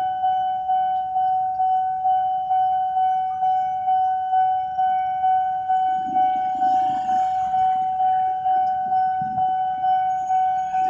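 Railway level-crossing warning bell ringing, one high ding repeated evenly about twice a second, the alarm that a train is coming. Motorcycle engines run underneath, briefly louder about six seconds in.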